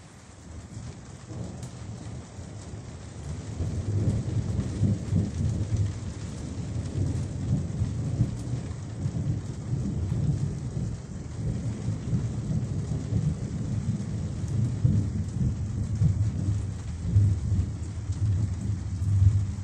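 Heavy rain on the cabin's corrugated translucent roof: a steady rush of rain with a deep, flickering drumming rumble underneath. It swells up over the first few seconds and then holds.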